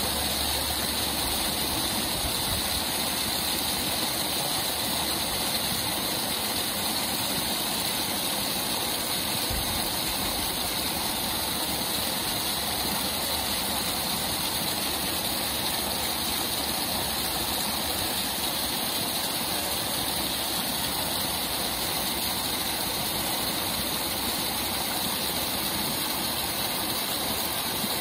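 Steady rushing of a waterfall: an even, unbroken water noise with no tone in it.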